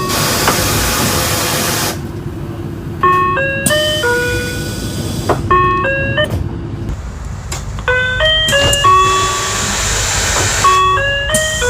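Door chime of a 2007 Mitsubishi Fuso Aero Star natural-gas city bus: a short electronic phrase of stepped tones, repeated about four times. A hiss of air from the pneumatic doors comes at the start and again a little after the middle, over the bus engine idling.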